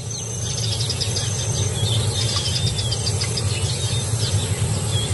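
Natural ambience: insects chirping in quick high pulses and short bird calls over a steady low hum.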